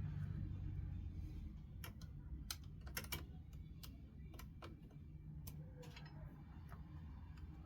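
About a dozen irregular light clicks and taps from small hardware being handled while a graphics card is taken apart, over a faint low steady hum.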